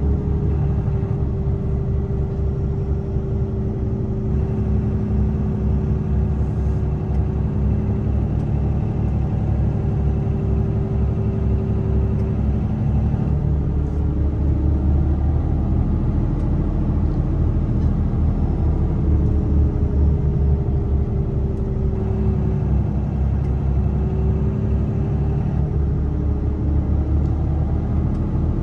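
A Mercedes-Benz Actros truck's diesel engine running steadily under way with a constant road rumble, heard from inside the cab. Its engine note drifts gently up and down a few times as the revs change.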